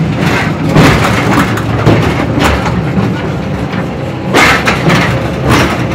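Mine-train ride car rumbling steadily along its track, with irregular metallic clanks and rattles.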